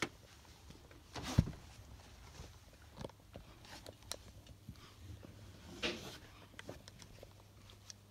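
Handling noise from a handheld phone camera being moved about: scattered rubs, taps and knocks over a faint low hum, the loudest a thump about a second and a half in.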